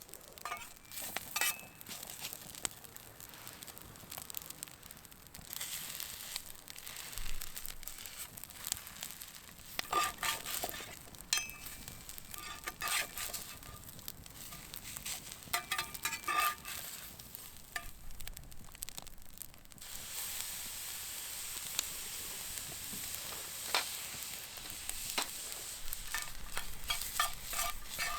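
Wagyu beef sizzling on a hot iron griddle, the hiss swelling and fading with sharp clicks and scrapes of a metal utensil against the plate; about two-thirds of the way through the sizzle turns steady.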